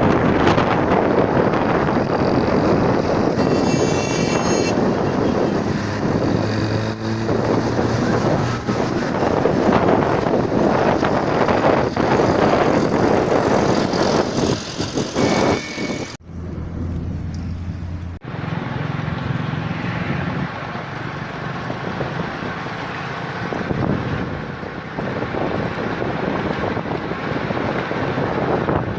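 Strong wind buffeting the microphone, with road traffic running underneath. A brief high-pitched sound comes about four seconds in. The wind and traffic noise drops off sharply and is lower over the last third.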